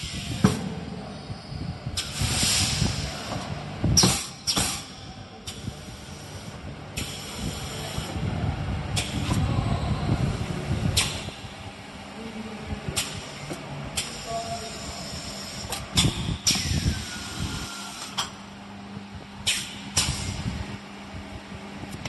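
Automatic PVA detergent pod packing machine running: its pneumatic air cylinders fire over and over, each stroke a sudden hiss or clunk of air, irregularly about every one to two seconds. Under the strokes runs steady machine noise.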